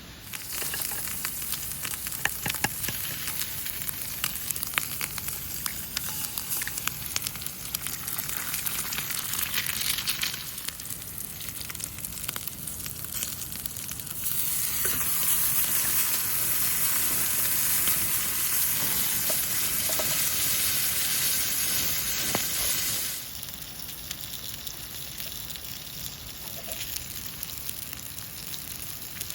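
Food sizzling and frying in a hot pan, with a steady crackling hiss and small pops. The sizzle swells noticeably louder about halfway through and drops back down a few seconds before the end.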